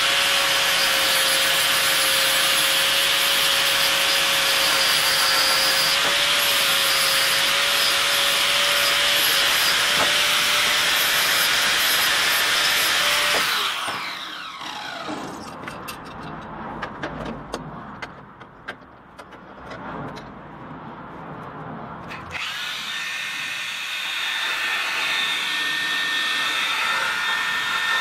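Angle grinder with an abrasive disc running steadily against a steel axe head, switched off about 13 seconds in and spinning down with a falling whine. Quieter scraping and knocks follow, then about 22 seconds in a power file (narrow belt sander) starts and runs steadily on the blade.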